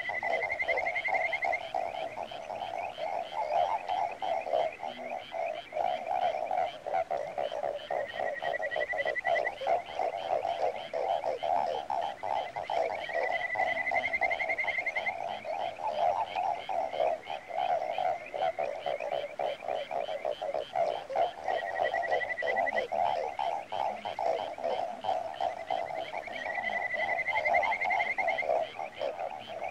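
A dense, steady chorus of rapid croaking calls, with a higher rising trill over it five times, each lasting about a second and a half.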